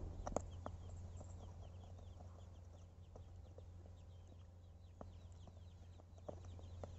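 Faint light clicks and taps from desoldering an LED bulb's driver board with a soldering iron, over a steady low hum. Birds chirp faintly in the background, a quick run of short falling chirps.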